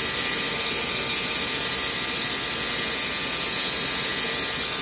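3Doodler 3D pen's filament drive motor running steadily with a high whir as it extrudes plastic to weld two pieces together.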